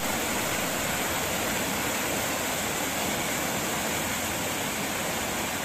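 Steady rush of flowing water, an even hiss with no rhythm or pitch.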